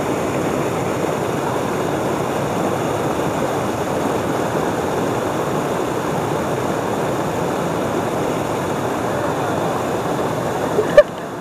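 Water rushing steadily over a low rock weir, a constant even rush. Near the end it dips suddenly, with one short sharp click.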